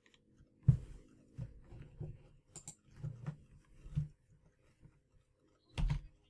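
Scattered soft clicks and taps from a computer being worked, keys and pointer, about one a second, the loudest about a second in and two close together near the end.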